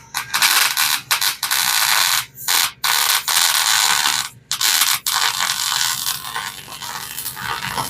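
Electric arc welder crackling and sizzling as weld beads are laid, in several runs broken by brief pauses.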